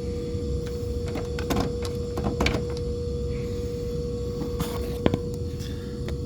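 Steady hum of refrigeration rack machinery, with a few short clicks and scrapes of hand tools working on the contactor wiring.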